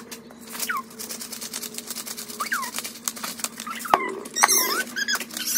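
A spice shaker shaken over a bowl of rice, giving a quick run of light rattling taps. Short high squeaks that slide up and down in pitch come several times, louder near the end.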